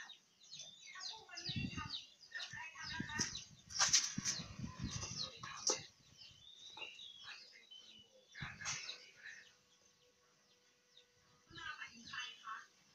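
Chickens clucking and small birds chirping in short, repeated calls, with some low thuds about a second and a half in and again around the middle.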